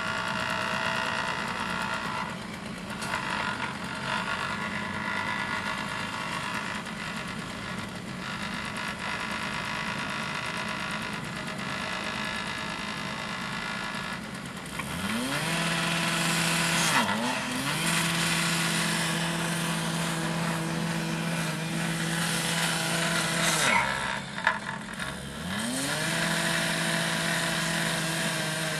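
Track-repair machinery running with a harsh, steady hiss. About halfway in, a small engine revs up and holds at high speed, dropping off twice for a moment and revving up again each time.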